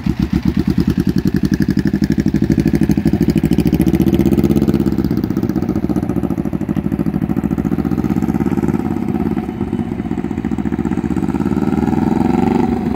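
1997 Kawasaki Vulcan 500's parallel-twin engine idling close by, then pulling away about five seconds in and running as the bike rides around, quieter with distance and a little louder again near the end.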